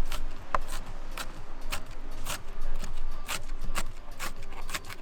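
Rhythmic scraping strokes, about two a second, over faint background music.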